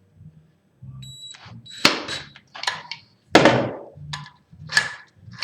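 Sharp clacks from deadbolt hardware being worked, about one every second and a half, each with a short ring; the loudest comes about three and a half seconds in.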